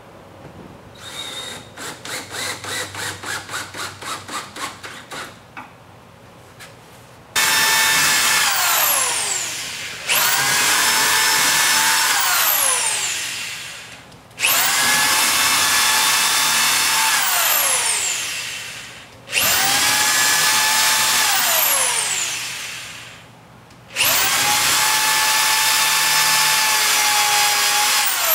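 A cordless drill pulsing in short rapid bursts, about four a second, driving a screw into the shutter guide rail. Then a corded electric drill runs in five long bursts drilling holes through the guide rail into the wall, each burst a steady whine that winds down with a falling pitch as the trigger is let go.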